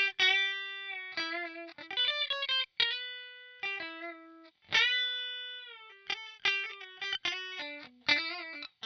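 Squier Affinity Stratocaster electric guitar played through a Line 6 POD HD500 effects modeller: single-note lead lines of sharply picked notes. Some notes are held and ring out, and between them come quick runs.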